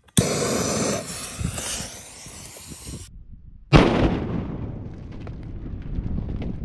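A rushing hiss for about three seconds cuts off, then, almost four seconds in, eight sticks of dynamite go off in one sudden loud blast. The blast dies away over the next few seconds, with scattered small clicks of falling debris.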